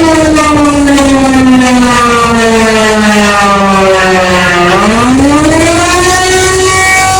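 Alarm siren with a rich, buzzy tone. Its pitch slides slowly down for about four seconds, then sweeps quickly back up to its starting pitch and holds there.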